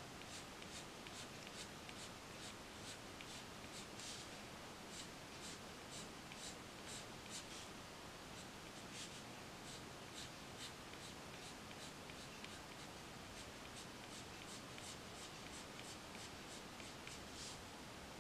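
Prismacolor colored pencil scratching lightly across drawing paper in short flicking strokes, about two a second, faint. The strokes stop shortly before the end.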